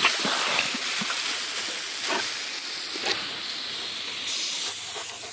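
Garden hose spraying water with a steady hiss as the jet splashes on a dog biting at it; the hiss is louder for the first couple of seconds, then settles lower.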